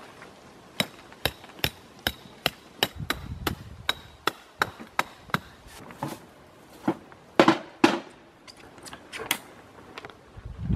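Tent peg being hammered into the ground: a run of sharp, evenly spaced strikes, about two and a half a second, then a few scattered knocks, the loudest ones about two-thirds of the way through.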